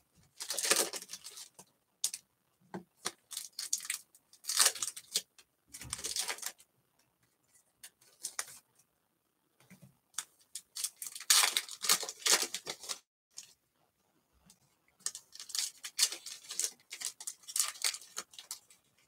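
Foil wrappers of Bowman baseball card packs crinkling and tearing as they are ripped open by hand, in irregular bursts of rustling with short quiet gaps between.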